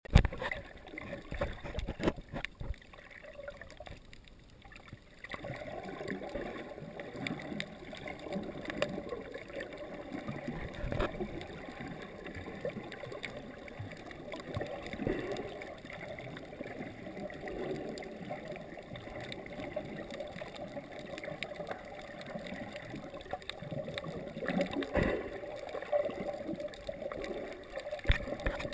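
Sea water sloshing and gurgling, heard muffled through a camera held underwater, with scattered short clicks and a brief lull about four seconds in.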